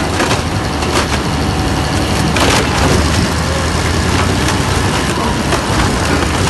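Doppstadt DW-2560 Bison slow-speed wood shredder running under load. Its diesel engine drones steadily while the toothed shredding shaft crushes logs and stumps with repeated cracks of splintering wood. The sharpest crack comes about two and a half seconds in.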